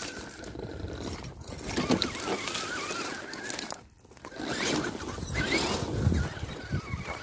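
Radio-controlled scale crawler driving over rocks: its electric motor whines, the pitch wavering and rising with the throttle, over crunching and scrabbling noise from the tyres. The sound drops out briefly about four seconds in.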